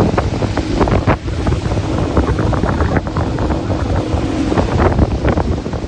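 Boat underway, its engine running under heavy wind buffeting on the microphone, with water rushing and splashing against the hull.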